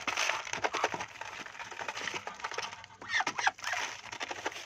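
Ducks feeding on crushed grain, their bills working the feed with rapid small clicks and rattles, with a short bird call about three seconds in.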